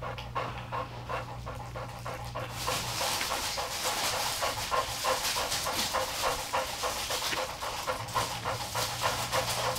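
Cane Corso bitch in labor panting fast and hard, a quick even rhythm of breaths that grows louder about two and a half seconds in.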